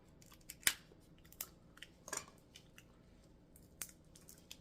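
Sharp cracks and clicks of seafood shells being broken open and handled while eating a seafood boil, about six spread irregularly, the loudest a little under a second in.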